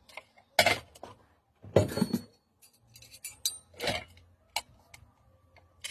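Metal pressure cooker parts being handled, giving a series of sharp clinks and knocks at irregular intervals.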